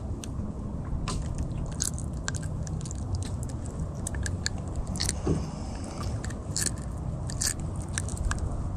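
Needle-nose pliers working a hook out of a grunt's mouth: irregular sharp clicks and scraping, metal on hook and fish jaw.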